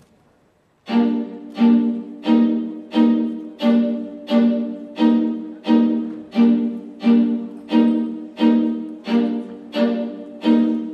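Music: after a pause of about a second, one string chord is played again and again in even pulses, about three every two seconds, each note fading before the next.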